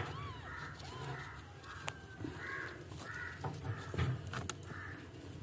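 Crows cawing over and over, short harsh calls about two a second. Near the start there are a couple of thin, high, arched mews from a newborn kitten.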